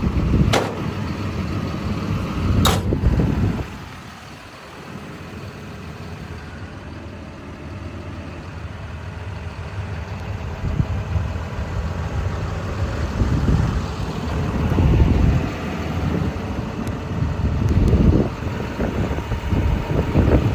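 John Deere 210G LC excavator's diesel engine idling steadily, with two sharp knocks in the first three seconds. About four seconds in the sound drops quieter, then builds back up, with a few dull low thumps later on.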